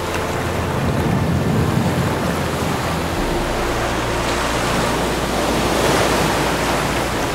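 Ocean surf washing onto the shore in a steady rush of waves, swelling a little twice. Low held music notes sit underneath.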